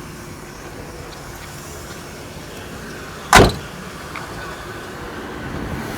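A heavy car door on a 1988 Rolls-Royce Corniche II shutting once with a single loud thump, about three and a half seconds in, over a low, steady background noise.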